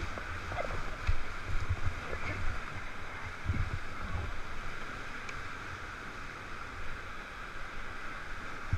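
Whitewater rapids rushing steadily around the raft, with a few low thumps and sharp knocks in the first four seconds.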